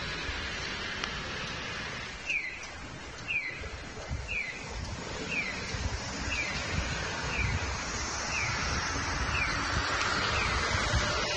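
Heisei-era Nisshin No. 21 acoustic pedestrian signal sounding its 'piyo piyo' chick-chirp walk tone: a short, falling electronic chirp repeating about once a second, starting about two seconds in, over steady street traffic noise. The chirping signals that the pedestrian light is green and it is safe to cross.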